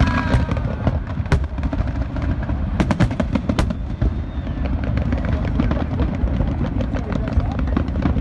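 Fireworks display going off: a steady low rumble of bursting shells with sharp, separate bangs now and then, several in quick succession about three seconds in.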